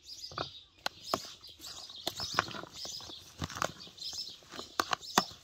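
Metal spoon stirring and tossing a chopped cucumber and tomato salad in a plastic bowl: irregular clicks and knocks of the spoon against the bowl. Birds chirp in the background.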